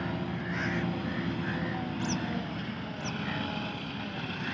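Massey Ferguson 385 tractor's diesel engine running steadily while working the field at a distance. Short high calls repeat about twice a second over it, with two quick chirps in the middle.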